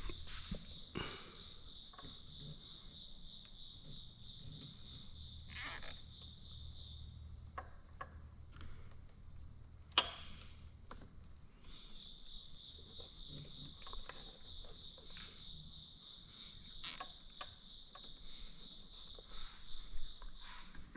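Insects trill steadily in two high-pitched pulsing chirps, one dropping out for a few seconds in the middle. Scattered sharp clicks and knocks sound over them, the loudest about ten seconds in.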